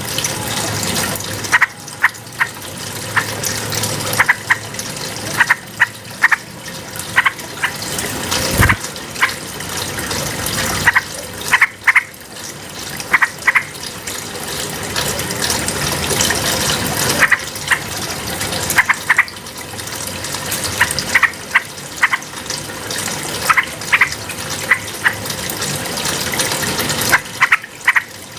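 Yellow-vented bulbul (trucukan) singing short, bright chirping notes in quick clusters, repeated every second or two, over a steady rush of running water.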